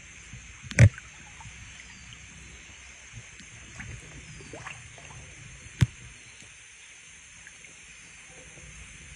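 Faint water sloshing and splashing as someone wades through a shallow stream, with two sharp knocks, one about a second in and another about five seconds later.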